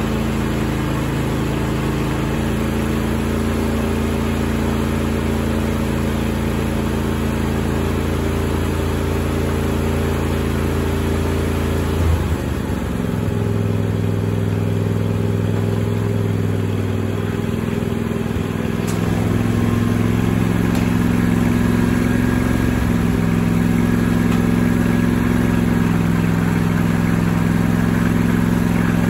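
Riding lawn tractor engine running steadily. About twelve seconds in, its note shifts abruptly to a new pitch. It runs a little louder over the last ten seconds.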